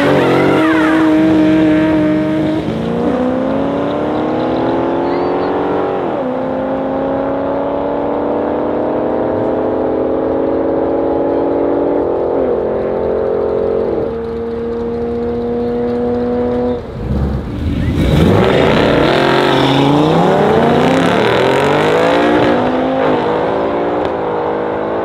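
Drag race launch of a classic Ford Mustang fastback and a BMW E36 Compact. Their engines climb in pitch through the gears, dropping sharply at upshifts about 3, 6 and 14 seconds in, and fade as they pull away. About 17 seconds in the sound cuts to a second pair of cars, revving up and down on the line, then accelerating away.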